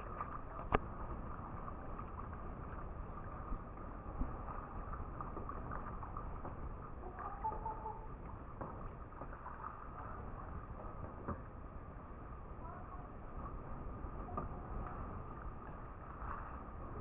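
Kayak paddling on the water: a steady hiss with a few sharp knocks, likely paddle strokes against the water and hull.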